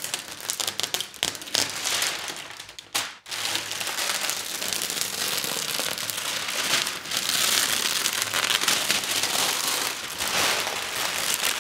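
Plastic protective foil being peeled off the glass panel of a transparent OLED screen and crumpled, a dense crackling and crinkling that breaks off briefly about three seconds in.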